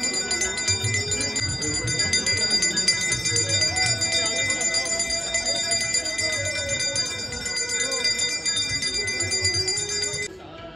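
Several brass hand bells (ghanti) rung rapidly and without pause in a Hindu aarti, over voices singing and a low rhythmic beat. The bell ringing stops suddenly near the end.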